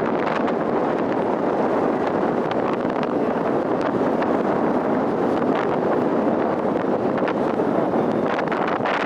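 Steady rushing wind buffeting the microphone aboard a moving ferry.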